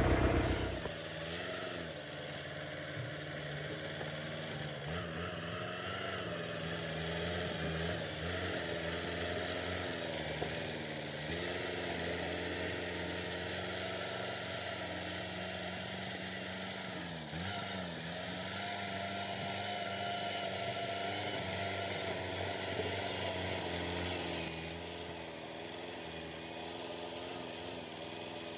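Diesel engine of an LKT Turbo forestry skidder running while its front blade pushes earth and stones. The engine note dips and recovers several times.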